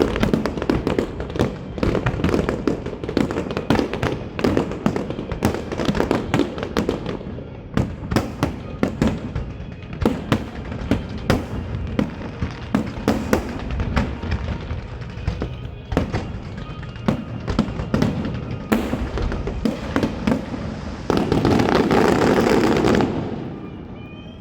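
A fireworks show: rapid, overlapping bangs and crackles of shells bursting, building to a dense, loud stretch near the end before the level drops away.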